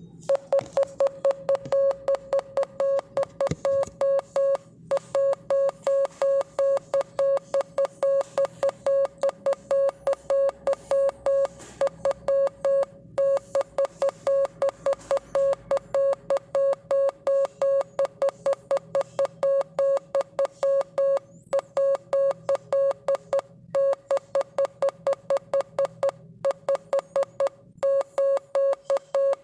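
Morse code sent as a single mid-pitched beep tone, keyed rapidly on and off in short and long pulses (dots and dashes), with brief pauses between groups.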